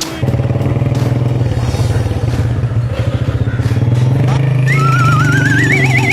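A loud, steady, low-pitched drone from a vehicle starts abruptly and holds one pitch. Near the end a higher, warbling tone joins it, rising steadily in pitch.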